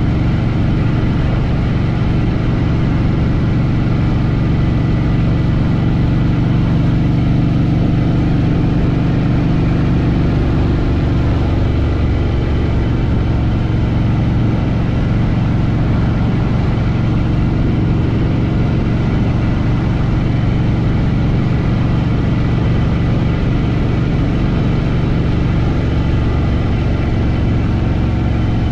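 Harley-Davidson Fat Boy Lo's V-twin engine running steadily under the rider, its note shifting a little about ten seconds in.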